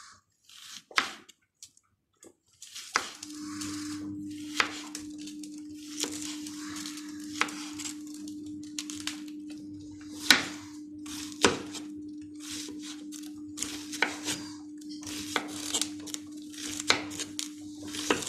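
Kitchen knife chopping an onion on a cutting board, with irregular knocks about one a second. A steady low hum starts about three seconds in and stops just before the end.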